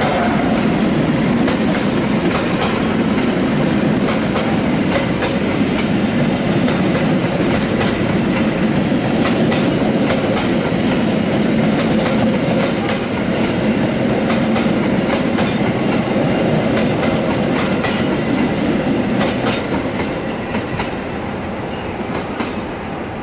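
Passenger train carriages rolling past at speed, the wheels clattering over rail joints and switches with many sharp clicks. The rolling sound fades near the end as the last car passes.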